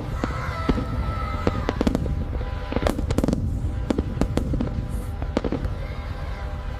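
Fireworks going off: a rapid, irregular run of sharp bangs and crackles over a continuous low rumble.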